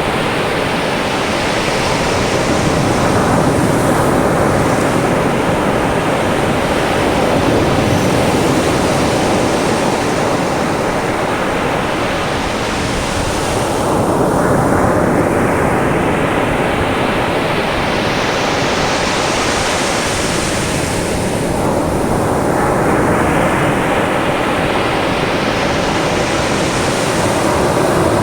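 Caribbean surf breaking and washing up a sandy beach: a steady rush of water that swells with each incoming wave about every six seconds.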